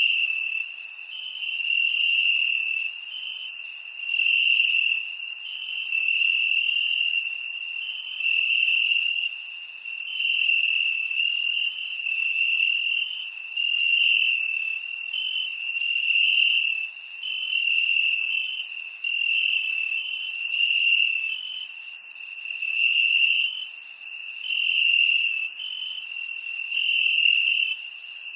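Crickets chirping in a continuous high-pitched trill that swells and fades about every two seconds.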